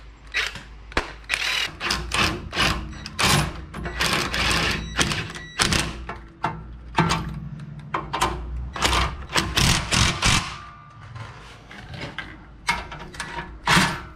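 Ryobi cordless impact wrench hammering in many short bursts, snugging down the U-bolt nuts on a pickup's rear leaf-spring axle, with a brief lull about eleven seconds in.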